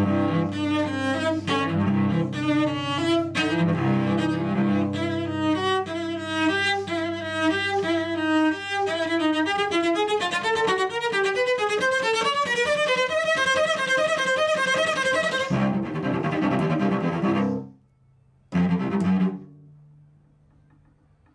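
Solo cello played with the bow: rapid running notes over a held low note, climbing steadily higher. It breaks off sharply near the end, followed by one short stroke and then near silence.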